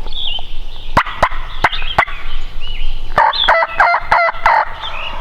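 Wild turkey tom gobbling once, a rapid rattling gobble a little over a second long in the second half. Before it come four sharp clicks, and small songbirds chirp high in the background.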